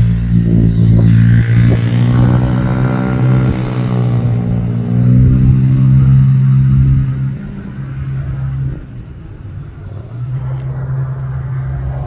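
A motor vehicle's engine running close by: a loud, steady low hum with a pitch that rises and falls in the first few seconds. It quietens about seven seconds in and comes back near the end.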